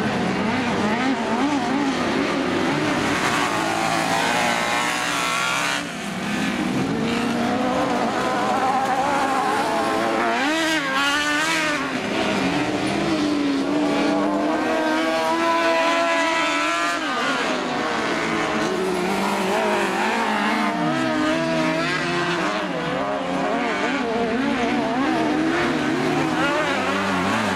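Several autocross race cars running together on a dirt track, their engines revving up and down with overlapping rising and falling pitches.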